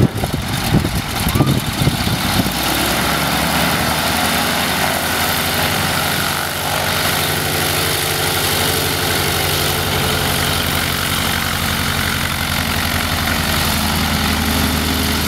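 Curtiss Standard biplane's radial engine running steadily at low taxiing power, with an even, fast beat. The first couple of seconds hold some louder, irregular noise before the engine sound settles.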